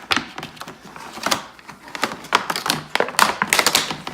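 Plastic tool case being handled and tugged open, giving irregular sharp clicks and knocks, with a quick run of rattling clicks in the second half.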